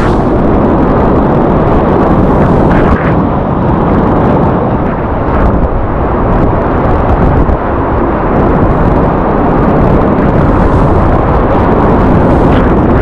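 Loud, steady roar of a class IV+ whitewater rapid, heard from a kayak running through it, with spray and splashes close by.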